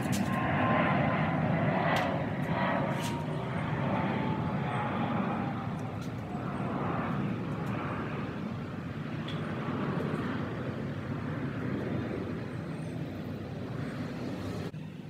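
An airplane flying past outside: an engine drone whose pitch falls slowly and which gradually fades. A few sharp clicks come in the first few seconds.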